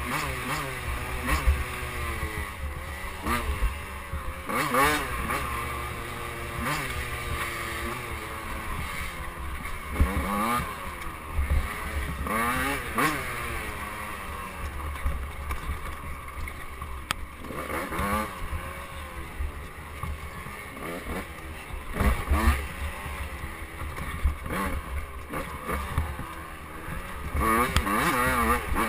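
KTM 85cc two-stroke dirt bike engine being ridden hard: the revs climb and drop over and over, every second or two, as the rider accelerates and backs off.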